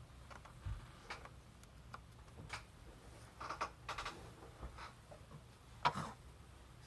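A dozen or so irregular light clicks and taps from handling and using a 2017 15-inch MacBook Pro, the sharpest about six seconds in.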